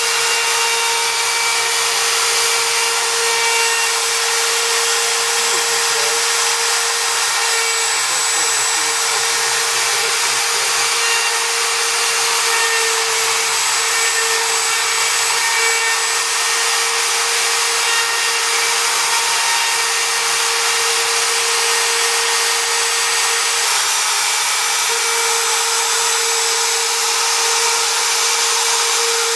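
CNC engraving machine's spindle running steadily while cutting, a constant whine over a hiss.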